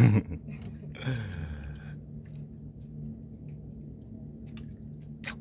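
A short loud shout right at the start and a brief falling vocal exclamation about a second in, then a steady low hum with a few faint scattered clicks and drips.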